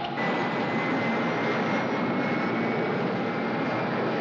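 Steady roar of a B-52 bomber's jet engines in flight, with a thin high whine held over it.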